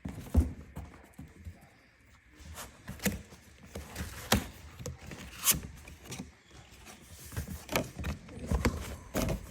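Cardboard packaging of an Apple Watch Ultra box being opened by hand: scattered taps, knocks, scrapes and rustles as the box is handled. The loudest knock comes about half a second in.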